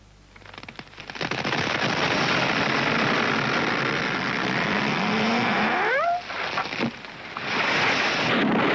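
Large bonfire burning with a loud, dense rush of crackling that dips briefly around six to seven seconds in. Just before six seconds a short rising whistle is heard.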